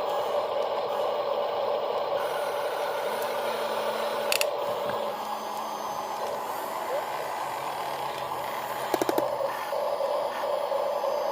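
Small electric motors and plastic gearing of a radio-controlled construction model whining steadily, briefly softer in the middle. There is a short click about four seconds in and a quick rattle of clicks near the end.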